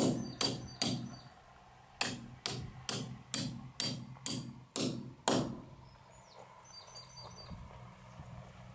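Hammer striking the end of a 12 mm Triplex mechanical sleeve bolt, metal on metal, driving it into a drilled hole in concrete. Three blows, a pause of about a second, then eight more at about two a second, stopping a little after five seconds in.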